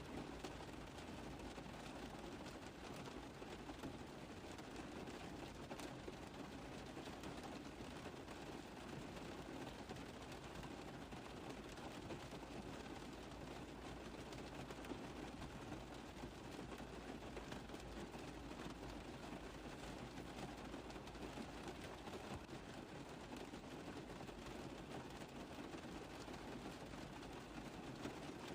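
Steady rain tapping on a car roof: a constant hiss made up of many fine, dense drop ticks.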